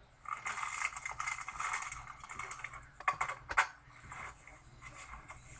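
Typing on a keyboard: a quick run of key clicks for about two seconds, then two louder clicks about half a second apart.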